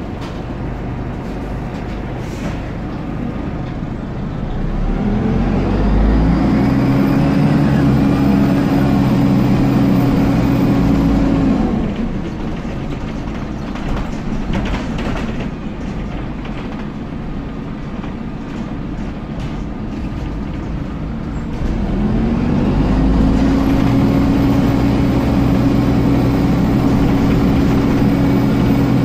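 Dennis Dart SLF bus's engine cooling fan, heard from inside the saloon while the bus is moving. It spins up with a rising hum about five seconds in, holds a steady pitch, cuts out around eleven seconds, then spins up again a little after twenty seconds and keeps running, over the engine and road noise.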